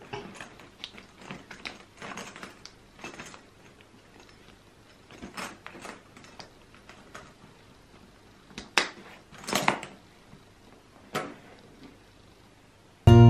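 Leather handbag being handled: scattered light clicks, rustles and clinks from its metal chain strap and hardware, the loudest two about nine and ten seconds in. Music starts abruptly at the very end.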